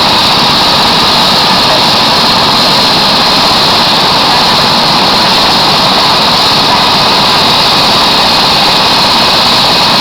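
Helicopter turbine engine and rotor running close by: a loud, steady whine and rush that holds unchanged throughout.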